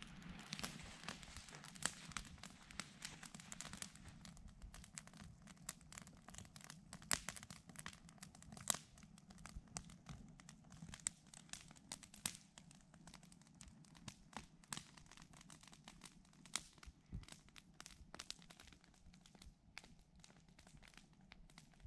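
Wood campfire crackling: faint, irregular sharp pops, several a second, over a low steady rush of the flames.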